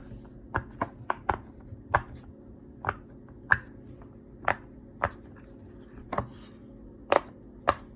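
Silicone pop-it fidget toy, a bear-shaped poppet, being popped bubble by bubble with the fingers: a string of sharp pops at uneven spacing, about one or two a second, some in quick pairs.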